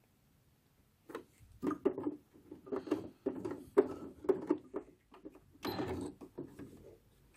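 Electric sewing machine stitching through felt in short stop-start bursts, beginning about a second in.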